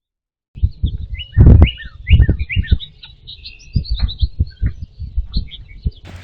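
Small birds chirping in short, quick high notes over a run of loud low thumps and knocks, the loudest about a second and a half in. Just before the end the sound cuts to a steady hiss.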